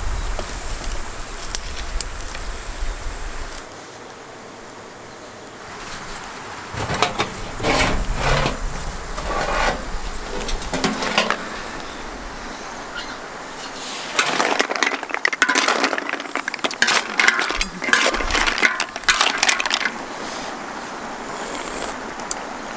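Snail shells clinking and clattering against a metal pan in two long runs of sharp clicks, after a low rumble at the start.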